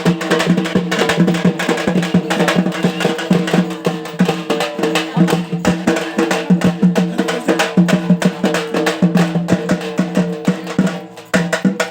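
Fast, drum-led music with rapid strokes over a steady held tone. It dips briefly near the end, then picks up again.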